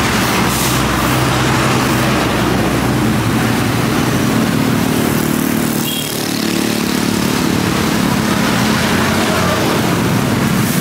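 A motor vehicle engine running steadily, with road and wind noise over it.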